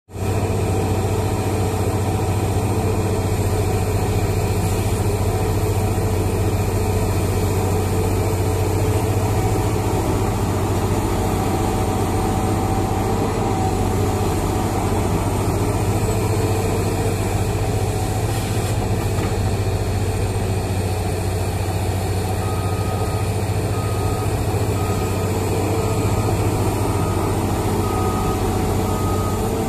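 Komatsu PC800SE mining excavator's diesel engine running steadily under load with its hydraulics, as the machine digs into broken rock and coal. From about three-quarters of the way through, a backup alarm beeps about once a second over it.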